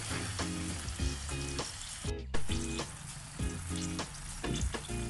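Chicken in chilli paste with a little added water sizzling and bubbling in a stainless steel pan, stirred with a wooden spatula at first, with background music over it.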